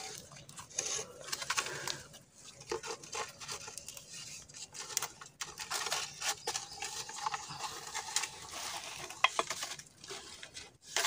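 Hands working a bamboo tube trap out of wet mud: irregular scraping, rustling and light knocks of bamboo and soil.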